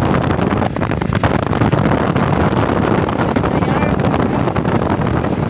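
Wind buffeting the microphone of a moving motorcycle, mixed with the bike's engine and road noise, loud and steady throughout.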